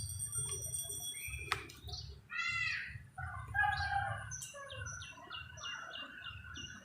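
Several birds chirping and calling at once, with a run of short high chirps repeating a few times a second in the latter half, over a low steady rumble.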